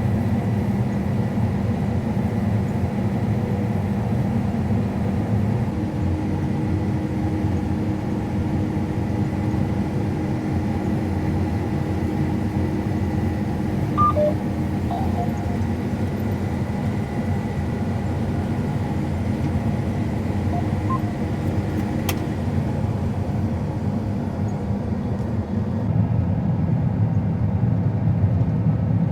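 A harvest machine's diesel engine running steadily, a constant drone heard while it drives across the field.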